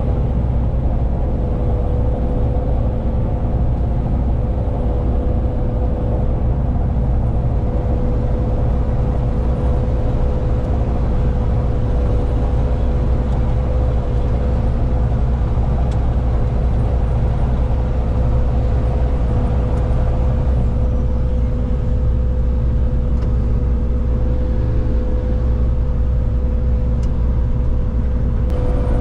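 Massey Ferguson 7244 combine harvester running steadily while cutting rye, with the grain going into the tank. It makes a constant low drone with a steady whine in it.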